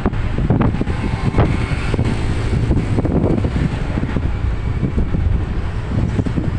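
Passenger minibus driving along a road, heard from inside the cabin: a steady low engine and road rumble with a few short knocks.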